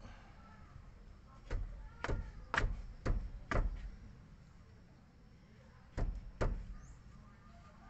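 Sharp metallic clicks of a wrench working the nut of a Ford EcoSport's stabilizer link while a hex key holds the link's stud: five clicks about half a second apart, then a pause and two more.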